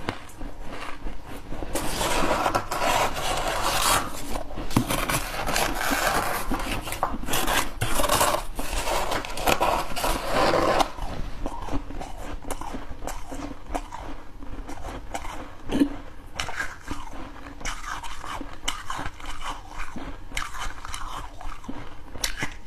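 Close-up crunching of a person chewing mouthfuls of freezer frost, dense and loud for the first half, then quieter crackly chewing with sharp clicks.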